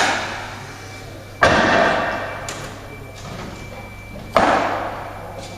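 Three heavy bangs, one right at the start, one about a second and a half in and one near four and a half seconds, each dying away over about a second.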